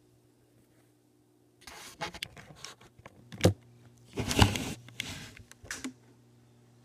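Rustling, scraping and sharp clicks close to the microphone as the recording device is handled and repositioned, over a steady low hum.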